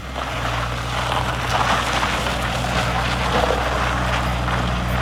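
Bobcat S185 skid-steer loader's four-cylinder diesel engine running at a steady speed, with mechanical clatter from the machine over the engine note.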